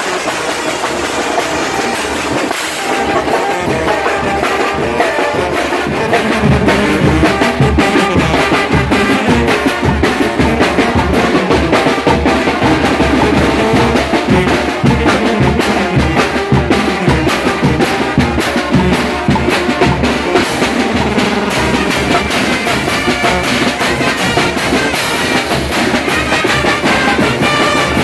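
Live village band music driven by a steady beat of bass drum and snare, growing louder about six seconds in.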